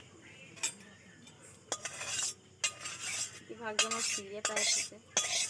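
A cooking utensil scraping and clattering against a pan as food is stirred. There are a couple of sharp clicks in the first two seconds, then several harsh scraping strokes.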